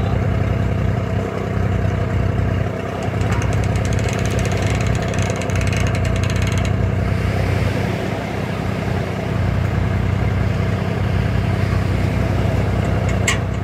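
Lifeboat launch tractor's engine idling steadily.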